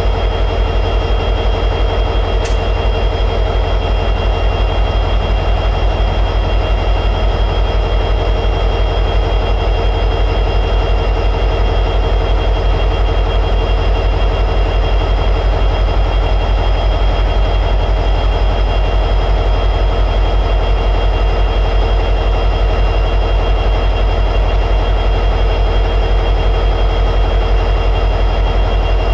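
EMD 710G3B 16-cylinder two-stroke diesel prime mover of an SD60-series locomotive running steadily at high idle, with a fast, even low pulse and a faint steady whine above it.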